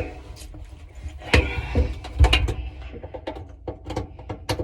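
Irregular clicks, taps and knocks of a screwdriver and metal parts inside a dryer drum while a screw is being worked into place, with a couple of louder knocks and then a run of small quick ticks.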